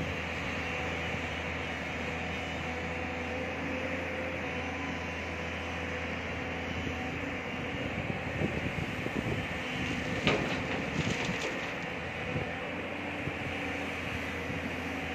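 Large tracked excavator's diesel engine running steadily. About eight seconds in, the bucket empties rock and soil into the steel tipper body with a run of irregular clattering knocks, the loudest about ten seconds in.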